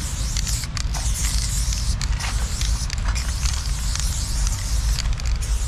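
Aerosol spray paint can hissing in several long strokes with brief breaks between them, over a steady low rumble.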